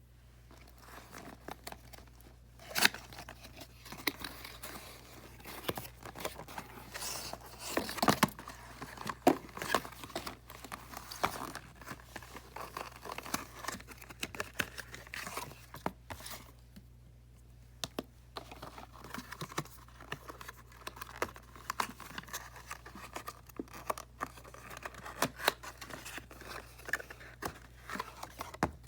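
Toy packaging being opened by hand: tearing, crinkling and rustling in irregular bursts with sharp clicks, and a brief lull a little past halfway.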